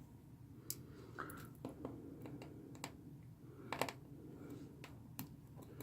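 Faint, scattered light clicks of a small Phillips screwdriver working tiny screws out of a phone's plastic back frame, about half a dozen at uneven intervals with a louder one about two-thirds of the way through.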